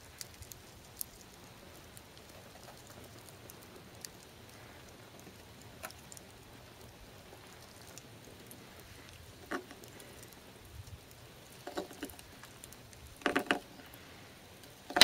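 Hook knife (Mora spoon knife) scooping shavings out of the bowl of a spruce spoon: faint scattered scrapes and clicks of the blade in the wood, with a few louder cuts in the second half, the loudest a quick pair about a second and a half from the end.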